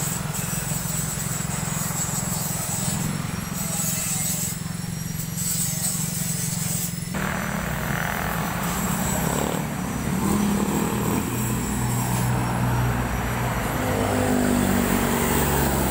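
Vehicle engine noise with a steady low rumble. About halfway through, the noise of passing road traffic swells in, and a heavier engine drone grows louder toward the end as vehicles go by.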